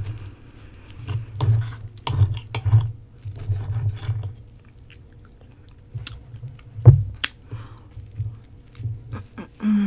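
Close-miked chewing of roti: soft, wet, irregular mouth and bite sounds. A single sharp click about seven seconds in is the loudest sound.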